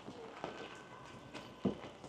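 Footsteps on pavement: a few irregular steps, the loudest near the end, over a faint steady hiss of rain and street noise.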